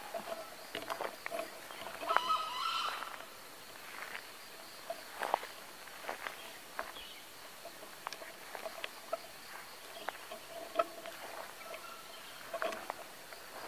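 A jungle fowl gives one short call about two seconds in. Scattered clicks and rustles from the grass and a faint pulsing chirp come and go throughout.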